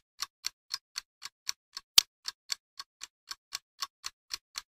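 Evenly spaced ticking, about four ticks a second, with one sharper, louder click about two seconds in.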